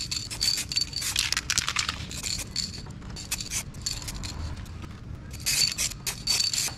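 Aerosol spray-paint can hissing in bursts as paint is sprayed onto an engine block, one long burst over the first two seconds and another starting about five and a half seconds in.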